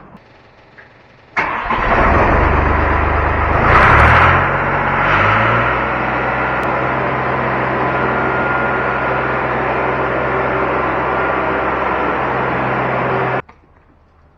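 A skid loader's engine starts with a sudden burst, revs up over the next few seconds, then runs steadily. It cuts off abruptly near the end.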